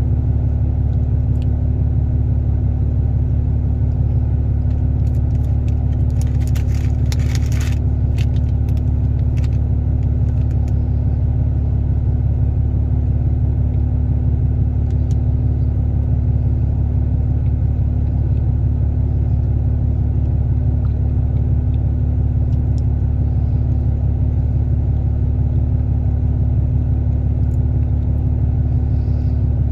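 A loud, steady low hum with a constant tone in it, unchanging throughout. A few brief clicks and rustles come about six to eight seconds in.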